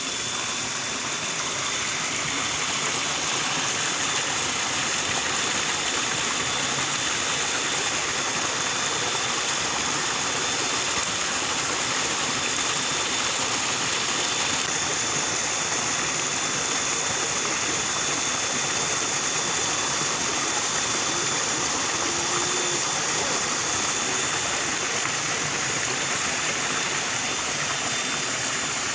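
Steady rushing noise with a thin high whine over it, unchanging throughout.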